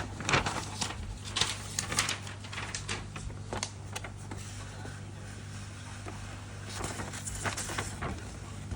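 Plastic model kit parts and packaging being handled: irregular rustles and light clicks, busiest in the first few seconds and again near the end, over a steady low hum.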